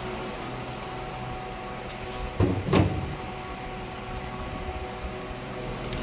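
Power sander running steadily while sanding a headlight lens, with a louder brief scuff about two and a half seconds in.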